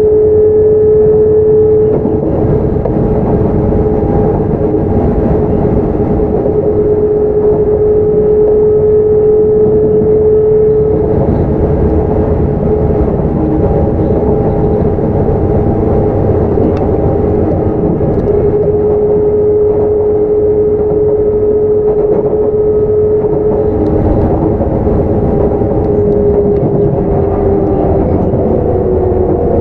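Onboard running noise of a Sotetsu 9000 series electric train, with Hitachi IGBT traction control and right-angle cardan drive: a steady rumble of wheels on rail under a held whining tone, at fairly constant speed. Near the end the whine starts to fall in pitch and a second tone joins it as the train slows.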